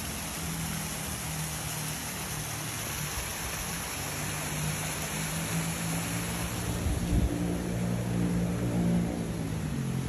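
A steady low motor hum under a hiss of outdoor background noise, with a brief low thump about seven seconds in.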